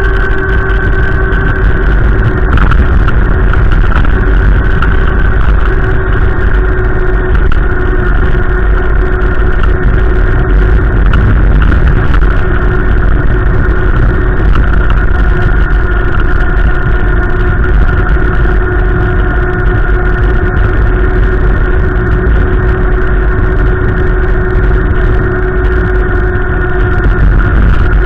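A vehicle running steadily: a loud, continuous low rumble under a steady droning hum that drifts only slightly in pitch.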